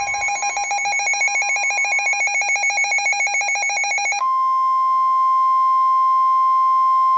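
Weather radio alert: a rapidly pulsing electronic alarm beep for about four seconds, then the steady single-pitch NOAA Weather Radio warning alarm tone, which signals that a warning broadcast is about to be read.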